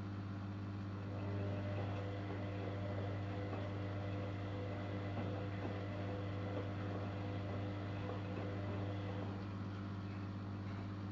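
Zanussi Jetsystem Turbodry ZWD 1000 washer-dryer running with a steady low hum. A higher motor tone with light ticks joins about a second in and stops about nine seconds in, like the drum turning for one tumble cycle.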